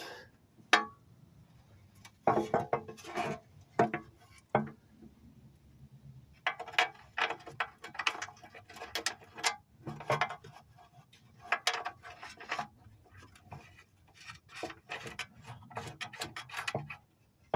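Bolts being started into a metal underbody plate, heard as short, irregular clusters of metallic clicks and rattles with pauses between them.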